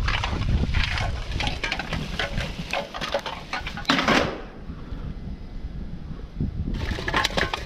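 Objects being handled and rummaged through: irregular clattering and rustling, busiest in the first half, a short quieter spell, then more clatter near the end.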